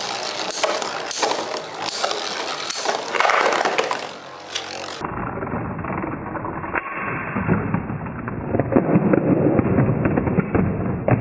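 Two metal Beyblade spinning tops, Lightning L-Drago and Meteo L-Drago, whirring and rasping in a plastic stadium, with a rapid run of sharp clicks as they strike each other. After about five seconds the sound turns duller.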